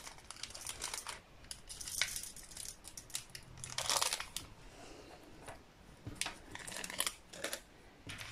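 Small plastic bag of diamond-painting drills crinkling and rustling as it is handled, with a few light clicks. The rustles come irregularly, the loudest about four seconds in.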